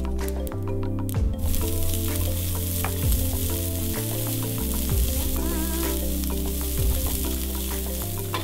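Cumin and mustard seeds crackling in hot oil in a ceramic frying pan. About a second in, diced carrots and green beans go in and sizzle steadily as they are stirred with a wooden spatula. Background music plays underneath.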